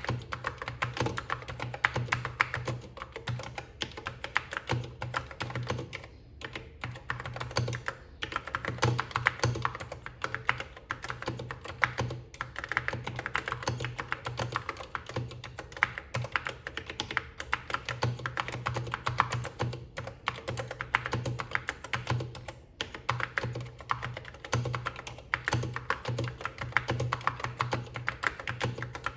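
Fast, continuous typing on a Key Tronic foam-and-foil keyboard: a dense run of keystroke clicks, broken by a few brief pauses.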